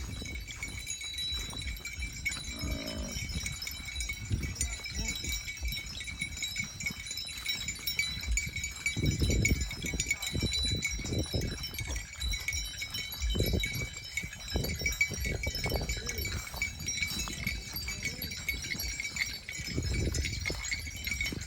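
Cattle grazing, heard as irregular low thumps and rustling, with a short animal call about three seconds in. Two steady high-pitched tones run underneath throughout.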